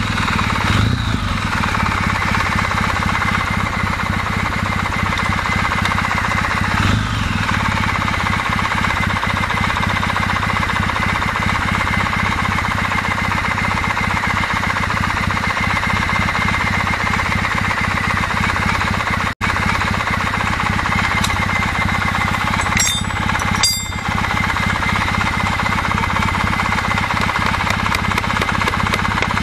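Kawasaki W650 air-cooled parallel-twin engine idling warm, with a fast, even mechanical clatter. The camshaft-gear knock it develops when hot is practically inaudible at this moment. The sound drops out for an instant about 19 seconds in.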